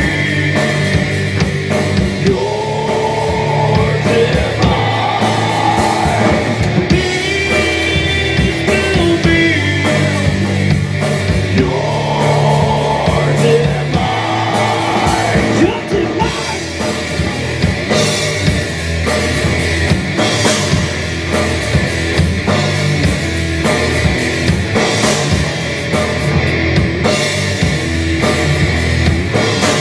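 Live rock band playing loud: distorted electric guitar, bass guitar and drum kit, with a sung vocal over them.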